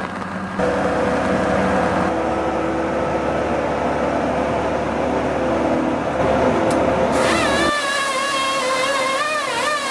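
Heavy machinery engine running steadily, the sound changing abruptly about half a second in and again near the end. A high whine wavers in pitch over the last couple of seconds.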